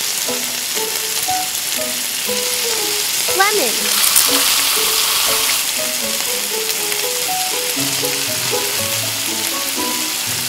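Squid frying in a small steel wok of hot oil and cooking wine, sizzling and bubbling steadily.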